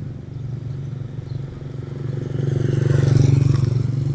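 A motor vehicle's engine passing close by: a steady low hum that grows louder to a peak about three seconds in, then begins to fade.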